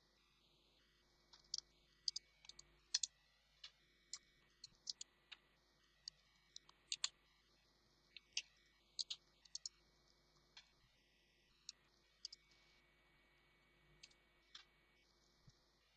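Computer keyboard typing: faint, irregular key clicks coming in short quick runs with pauses between.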